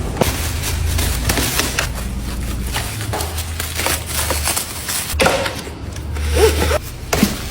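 Packaging being handled and opened: repeated knocks, scrapes and rubbing, with a deep bass line coming and going underneath.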